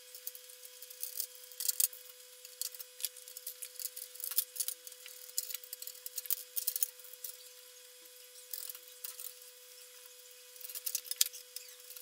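Small irregular clicks, taps and scrapes as plastic spring-clip speaker terminal blocks are pressed into a sheet-metal amplifier chassis panel and screwed down with a screwdriver. A faint steady whine runs underneath.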